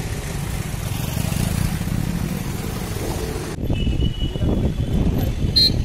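City street traffic with motorcycles and cars running past in a steady noisy rumble. About three and a half seconds in the sound changes abruptly to a duller, fluctuating rumble.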